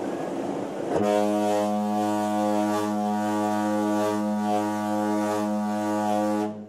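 Ship's horn sounding one long, deep, steady blast, starting about a second in and cutting off sharply just before the end, after a second of low rumble.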